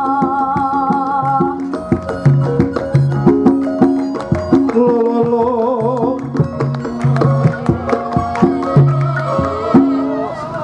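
Javanese gamelan music accompanying a wayang kulit performance: metal keyed instruments and drum strokes play a busy beat. A wavering female vocal line is heard at the start and again midway. The struck notes thicken about a second and a half in.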